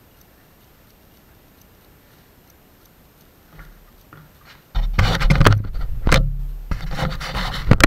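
A couple of light taps, then about five seconds in a tool starts scraping and rubbing loudly on the rudder-box parts, in rough uneven strokes with short breaks.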